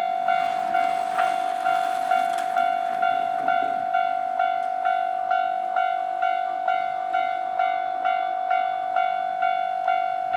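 Japanese railway level-crossing warning bell on the Nankai Koya Line, ringing its electronic clang a little over twice a second in a steady, even rhythm: the crossing's warning that a train is coming.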